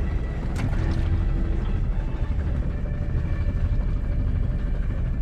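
Fishing boat's engine running steadily, a continuous low drone, with one brief sharp click about half a second in.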